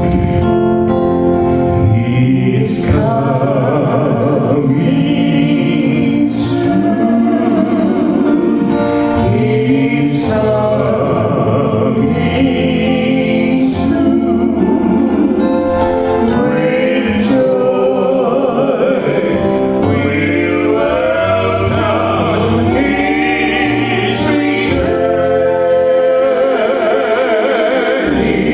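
Gospel worship song: several voices singing together over instrumental accompaniment, with held, wavering notes.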